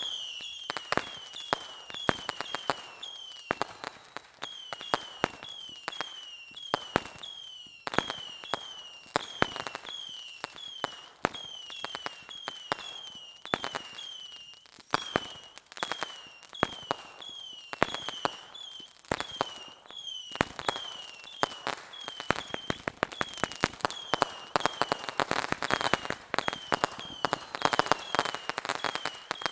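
Fireworks and firecrackers going off in rapid, irregular bangs and crackles, with a short high falling whistle repeating about once a second.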